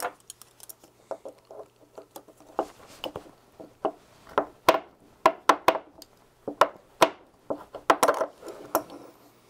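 Pliers clicking and scraping on a small brass-coloured TO5 sensor can clamped in a steel bench vise. It makes a long run of irregular sharp metal clicks as the can is pried at to open it.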